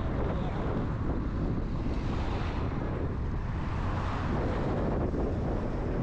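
Wind buffeting the microphone over the steady low rumble of a vehicle moving along a street.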